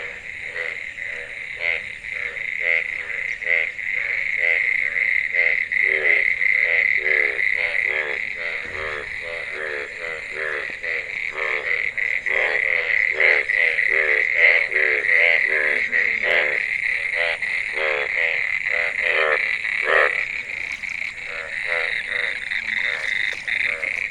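Chorus of frogs and toads calling after heavy rain: many rapid, overlapping croaks, with a steady higher-pitched trill running underneath.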